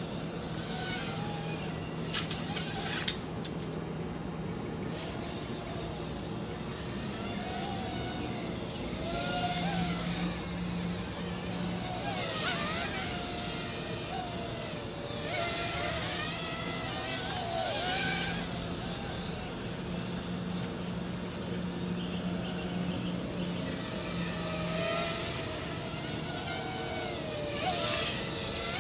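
Crickets chirping in a fast, even pulse, over the whine of a WLToys V252 Pro quadcopter's small motors rising and falling in pitch as it flies. A few sharp clicks about two seconds in, and now and then a gust of wind rushing on the microphone.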